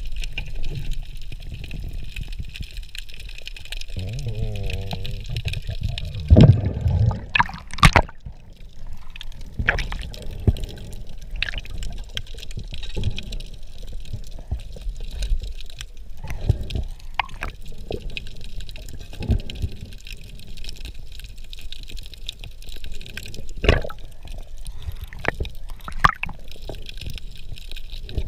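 Underwater sound during spearfishing: a steady low, muffled rumble of moving water with scattered clicks and knocks from the diver's gear. The sharpest knocks come about six to eight seconds in and again about twenty-four seconds in.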